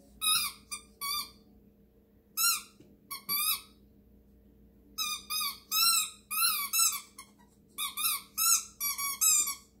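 Small dog chewing a rubber squeaky ball toy, making it squeak over and over. Short squeaks that rise and fall in pitch come in bunches: a few at the start, a few more around the middle, then a quick run of them through the second half.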